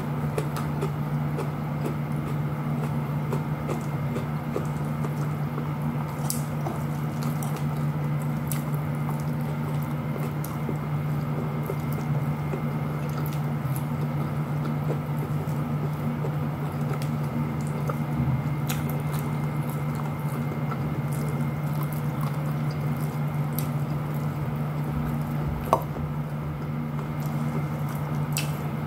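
Eating sounds: fingers squishing rice and fried fish together on a plate and chewing, with small scattered clicks and one sharper click near the end, over a steady low hum.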